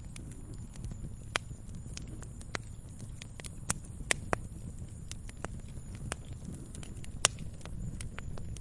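Fireplace fire crackling: irregular sharp pops and snaps, a few of them louder, over a steady low rumble of the flames.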